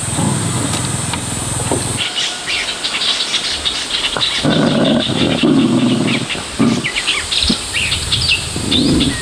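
Small birds chirping in many short calls, with insects. A steady low hum and a high hiss stop about two seconds in, and irregular lower sounds come and go after that.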